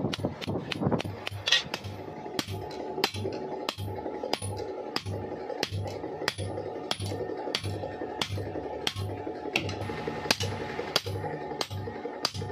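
Hammer striking a steel chaff cutter blade in a steady rhythm, about one and a half blows a second, each with a short metallic ring; the blows come faster in the first couple of seconds. The blade's edge is being drawn out by hammering to sharpen it.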